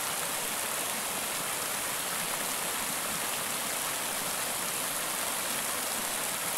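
Steady rush of floodwater pouring over a low river weir, an even hiss with no breaks.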